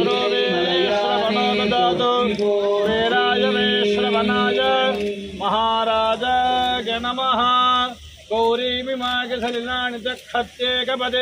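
Male voice chanting Hindu devotional verses in a singsong, with long held notes that bend at the ends of phrases. There is a brief break about eight seconds in.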